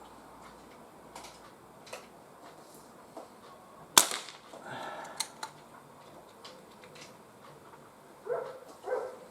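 One shot from a Crosman 2300T .177 CO2 pistol, a single sharp crack about four seconds in, followed by a few lighter clicks. Near the end a dog barks twice.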